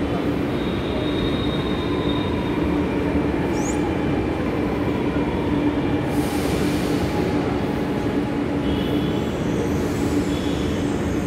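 A running escalator: a steady mechanical rumble of the step chain and drive, with a constant low hum and a few faint high squeaks.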